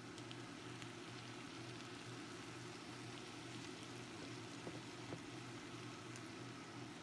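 Chow mein noodles and vegetables sizzling in a wok: a steady, fairly faint hiss over a low steady hum, with a few faint clicks.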